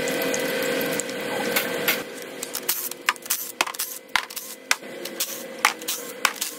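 A cordless power tool runs steadily for about two seconds, then sharp metallic clicks and clinks follow at an uneven pace as bolts and parts are handled on the bare cast engine block of a 5.3 L LS V8.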